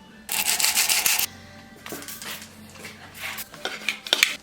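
Bicycle brake parts being cleaned of an oily film, the cause of the brake squeal: a loud hiss lasting about a second, then intermittent rubbing and scraping.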